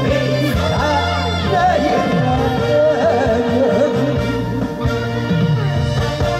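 A man singing a Korean song into a microphone over instrumental accompaniment, his voice wavering with vibrato. The singing stops about three-quarters of the way in, leaving the accompaniment playing.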